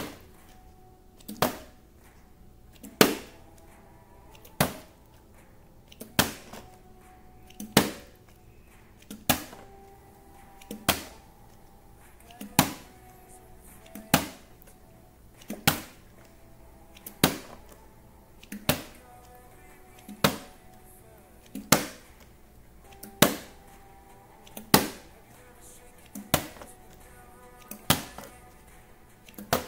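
A small plastic water bottle flipped again and again and landing on a concrete floor: a sharp thud about every second and a half, some twenty in a row, each with a lighter tap just before it.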